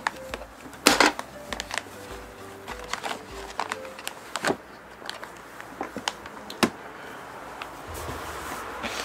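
Plastic vacuum bag crinkling, with sharp clicks and knocks, as the bag is laid across the sealing bar of a vacuum sealer and the lid is closed over it.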